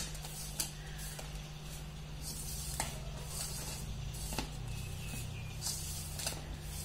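Hand mixing raw pork pieces with flour and spice powder in a stainless steel bowl: soft rustling and squishing, with a few light clicks against the bowl, over a steady low hum.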